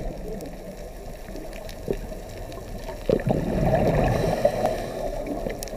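Underwater recording: a steady muffled rush of water, swelling louder from about three seconds in, with a couple of faint knocks.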